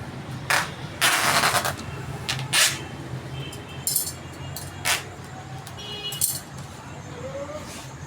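Packing being handled: a series of short rustling and clattering noises, the longest lasting over half a second about a second in, over a steady low hum.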